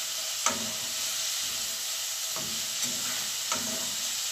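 Sliced onions and green peppers sizzling as they are stir-fried in an aluminium pan, with a steady hiss. A slotted spatula stirs them, knocking and scraping against the pan several times, sharpest about half a second in.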